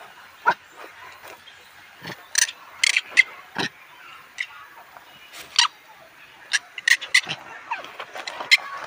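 Newborn macaque giving short, high-pitched squeaks and cries, scattered irregularly, a dozen or so through the stretch.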